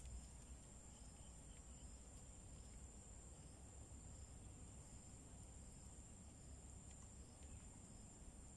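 Faint, steady high-pitched trilling of crickets or other insects over near silence.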